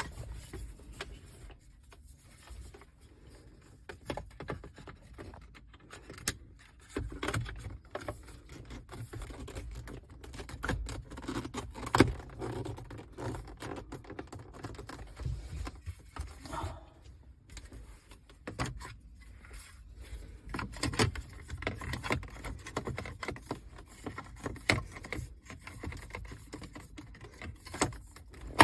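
Hands working plastic dashboard trim and wiring in a car: scattered clicks, taps and rustling, with a sharp knock about twelve seconds in.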